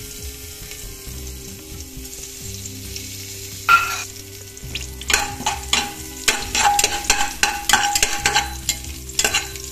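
Crushed whole spices sizzling in hot coconut oil in an aluminium pressure cooker. A sharp metal clink comes a little before halfway, then from about halfway on a steel spoon stirs and scrapes against the bottom of the pot in quick, ringing clinks.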